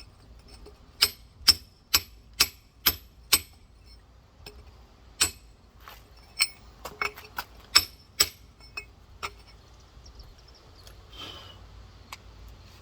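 Rock hammer tapping on a giant geode: sharp ringing strikes, six at about two a second, then a looser run of single and quick double taps.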